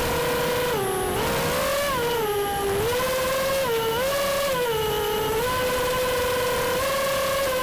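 Electric motors of a radio-controlled FPV aircraft whining in flight, the pitch rising and falling with the throttle over rushing air noise.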